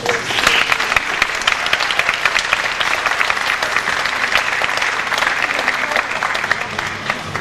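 Theatre audience applauding: many hands clapping together in a dense, steady patter.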